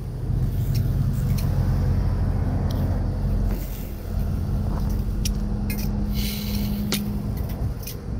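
Strong wind buffeting the microphone, with a truck engine idling steadily underneath and a few light clicks.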